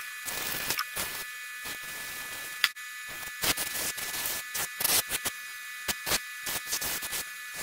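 Aerosol carb and choke cleaner hissing through a thin extension straw into a carburetor body's passages, a steady spray broken by many short, louder bursts as the nozzle is pressed again and again, flushing out the fuel and air circuits.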